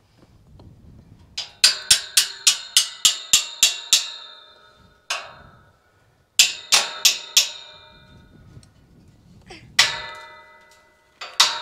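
Hammer blows on steel gate-hinge hardware: quick runs of sharp metallic strikes, about four a second, each ringing briefly, with pauses between the runs and single blows in between.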